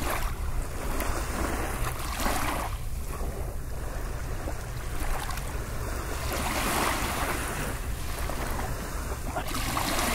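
Sea surf washing in, a rushing noise that swells and fades every few seconds over a steady low rumble.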